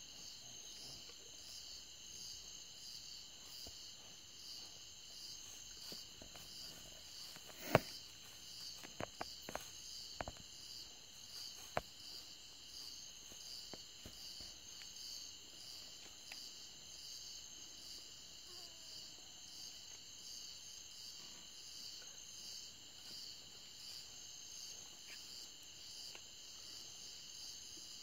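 Steady night chorus of insects, crickets or katydids, in a high, even pulsing of about two beats a second. A few sharp snaps or cracks come between about eight and twelve seconds in, the first the loudest.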